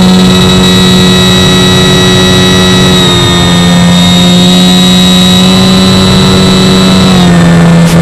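Avios Grand Tundra RC plane's brushless electric motor and propeller, heard from its onboard camera, running with a loud steady whine; the pitch dips slightly about three seconds in and drops a little about seven seconds in.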